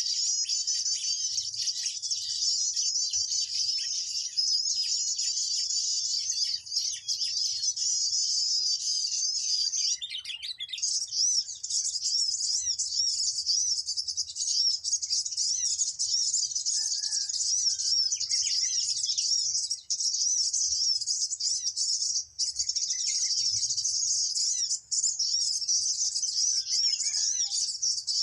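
Small songbirds chirping and twittering high-pitched and without pause, in rapid repeating phrases, with a brief break about ten seconds in: a mantenan bird call of the kind used to lure the birds in.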